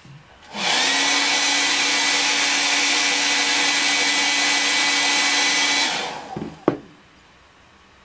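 Handheld hair dryer switched on, heating a metal eyelash curler. It spins up with a brief rise in pitch, runs steadily for about five seconds, then is switched off and winds down. A single sharp click follows shortly after.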